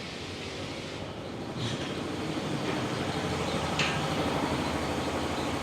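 Steady low rumble of a running vehicle, with two short hisses about one and a half and four seconds in.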